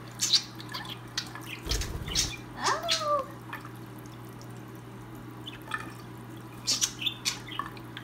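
Tap water running steadily into a sink while two budgerigars bathe in the stream, with short sharp splashes and chirps from the birds. There is a soft low thump about two seconds in and a brief sliding call around three seconds in.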